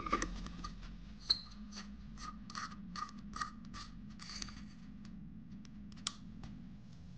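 An LED bulb's metal screw base being twisted by hand into a plastic lamp socket: short scraping strokes of the threads, about two a second, over the first four and a half seconds. A single sharp click follows about six seconds in, fitting the socket's rocker switch being pressed.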